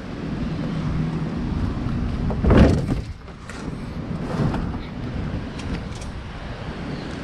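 A mobile home tire thrown into a pickup bed lands with a loud thump about two and a half seconds in, with a smaller knock of tires shifting a couple of seconds later. Steady wind noise and a low hum run underneath.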